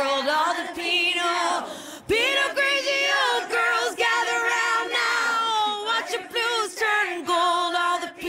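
Female pop vocals singing in layered harmony, nearly unaccompanied and with no bass underneath.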